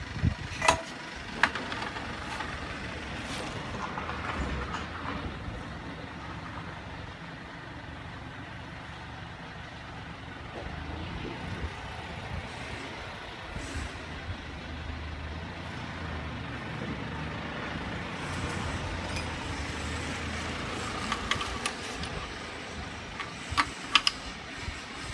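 Sharp metallic clinks of an open-end spanner on the clamp nuts of a manual butt fusion welding machine: a couple about a second in and a cluster near the end, over a steady low engine-like rumble.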